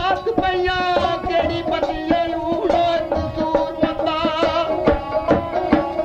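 Folk music: a wavering melodic line over a steady drone, with regular drum strokes.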